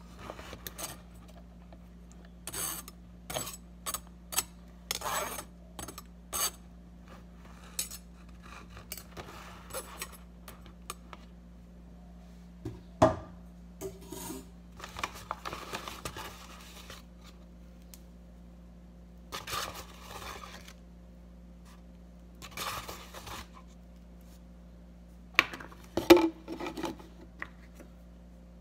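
Kitchen handling: a metal pot and utensil knock and scrape against a clear plastic tub as cooked pasta is added, in scattered clicks and short scrapes. The loudest knocks come about 13 and 26 seconds in, and near the end a plastic lid is pressed onto the tub.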